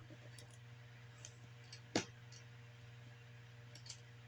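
Faint clicks and ticks of small laptop parts and screws being handled during reassembly, with a sharper click about two seconds in, over a steady low hum.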